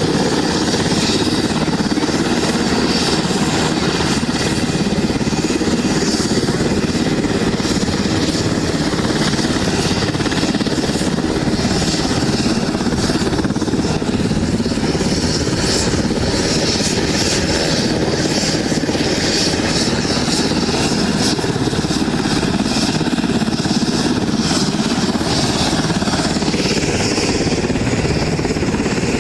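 Loud, steady engine noise that runs without a break.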